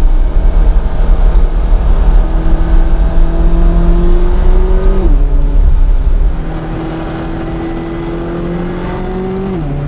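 McLaren 570GT's twin-turbo V8 under hard acceleration, heard from inside the cabin: the engine note climbs steadily through a gear and drops sharply at an upshift about five seconds in, then climbs again and shifts up once more near the end.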